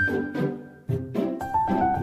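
Background music with a steady beat; it briefly drops out a little under a second in, then picks up again.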